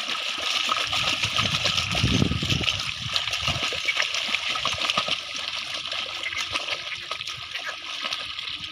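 Water and mud splashing and sloshing as young bullocks pull a plough through a flooded field, the surges strongest in the first few seconds.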